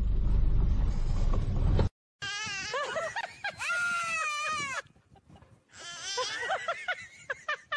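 A loud low rumbling noise that cuts off suddenly after about two seconds. Then a young goat bleats in long wavering cries and a toddler yells back, the two calling in turn in two bouts.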